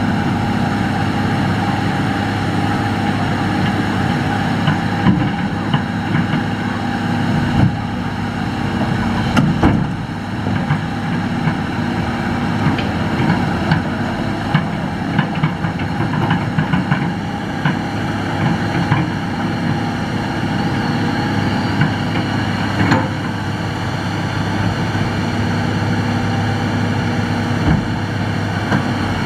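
Hitachi excavator's diesel engine running steadily, with scattered sharp knocks and clanks while it digs sand-and-gravel fill.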